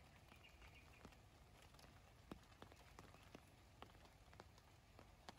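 Near silence with faint, sharp taps at irregular intervals, about one or two a second.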